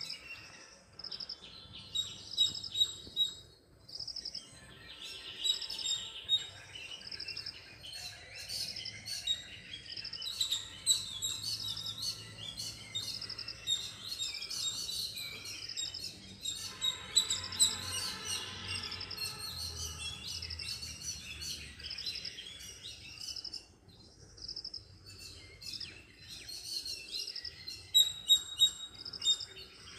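Several birds chirping and singing, with many short high notes overlapping.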